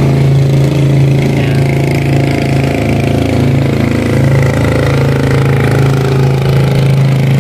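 An engine running steadily at idle: a constant low hum with no change in speed.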